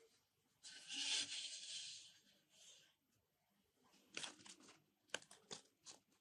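Thread pulled through the stitching holes of a leather handle grip, a long rasp about half a second in and a shorter one after it, followed by small clicks and rustles as the needle is worked through the leather.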